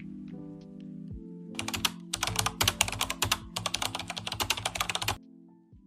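Fast typing on a computer keyboard, a quick run of key clicks starting about a second and a half in and stopping suddenly near the end, over background music.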